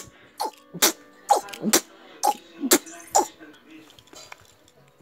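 A person making a run of short, sharp mouth noises, about two a second, seven in a row, like play sound effects for a toy car, then falling quiet near the end.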